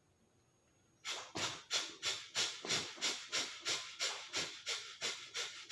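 A person breathing out forcefully and rapidly in the yogic cleansing practice Virechan Gati: short, sharp rushes of breath about three a second, each one as the elbows are pulled down. They begin about a second in, after a brief quiet, and keep an even rhythm.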